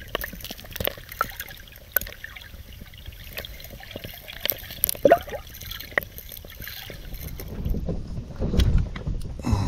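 Water lapping and trickling at the water's edge, with scattered small clicks and taps and a short rising squeak about five seconds in.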